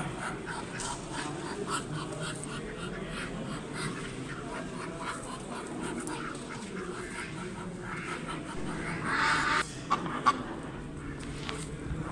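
Poultry-show hall din: penned ducks and other fowl calling over and over in short, repeated calls. About nine seconds in, one louder harsh rasp lasts about half a second.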